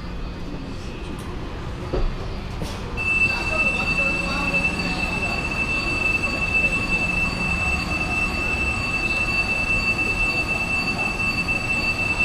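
Chinese CRH high-speed train, heard from inside: a low rumble, then about three seconds in a steady high-pitched squeal sets in and holds without changing.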